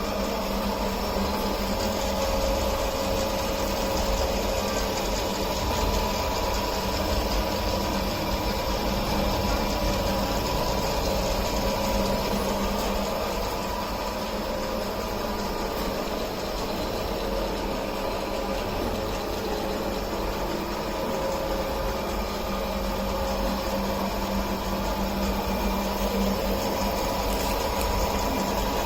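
Multi-spindle drilling machine running steadily, an even motor hum with a few constant tones and no breaks.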